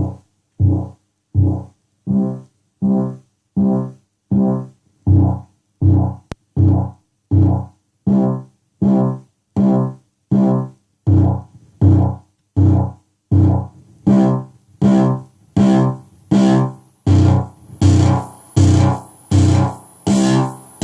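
Arturia MicroBrute synthesizer note repeated evenly, about three every two seconds, each note dying away quickly, heard only through an Echoblender delay pedal used as a distortion (dry off, decay at zero, shortest delay). About two-thirds of the way through the notes turn brighter and harsher, a dirty, high-frequency distortion, with a thin high whine over them.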